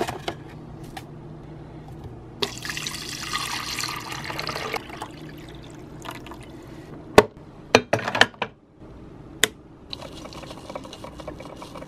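Water running from a kitchen tap into a coffee pot for a couple of seconds, followed by several sharp clicks and knocks as the coffee maker is handled, the loudest a single sharp click.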